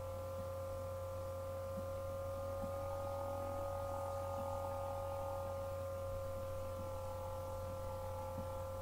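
A steady drone of several held tones over a low hum, unchanging throughout.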